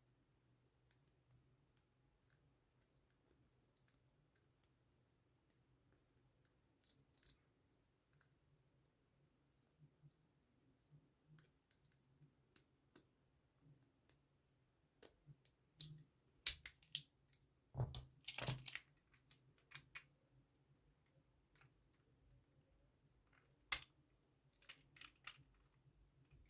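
Lock-picking tools clicking and scraping in a padlock's pin-tumbler keyway, with scattered light ticks. Louder clacks and a rattle come about two-thirds of the way through, and a single sharp click near the end.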